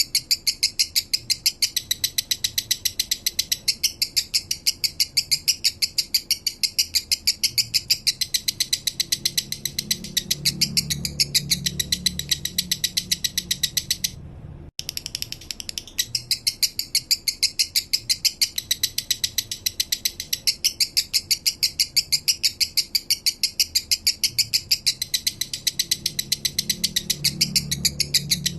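Male lovebird singing a 'minor' song: a fast, even run of sharp high chirps, about four a second, with a short break about halfway.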